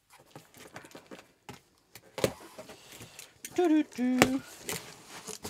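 Cardboard shipping box being opened by hand: scattered scrapes, rustles and knocks as the flaps are pulled back. About three and a half seconds in comes a short hummed voice sound from the person, with a sharp knock just after it.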